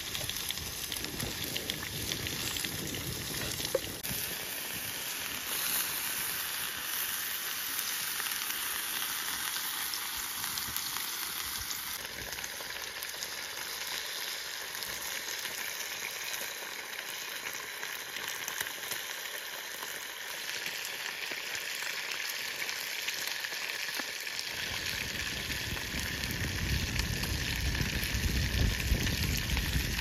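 Beef steaks frying in a skillet over an open wood fire, a steady crackling sizzle. A low rumble sits under it in the first few seconds and again from about 25 seconds in.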